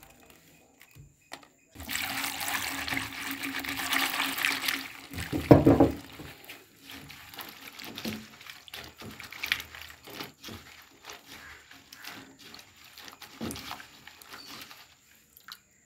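Liquid poured from a bottle into a clay pot of green chillies, a steady splashing hiss for about three seconds, followed by a single low knock. Faint small clicks and rustles follow.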